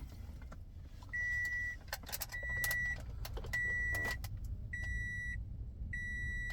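A steady electronic beep sounding five times, each about half a second long and a little over a second apart, from the car while the steering-wheel-control interface auto-programs. Scattered faint clicks and rattles come in between the beeps.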